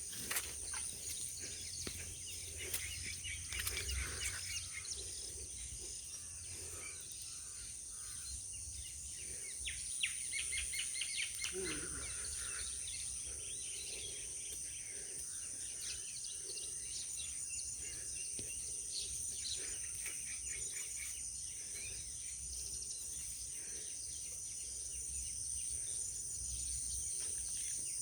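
Birds chirping in scattered short calls over a steady high-pitched insect drone, with a low rumble of wind on the microphone.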